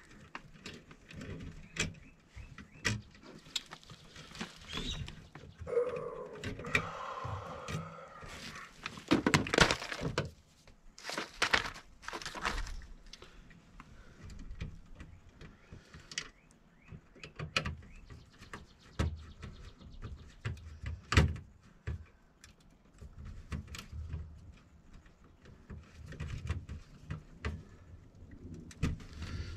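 Scattered clicks, taps and knocks of hands and a tool working wire terminals and connectors on a furnace control board, with a few louder handling knocks near the middle.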